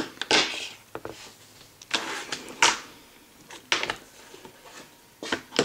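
Fingerboard being flicked through tricks on a tabletop: a series of sharp clacks as the small deck's tail pops and the board lands, with short hissy rolls of its tiny wheels across the table in between.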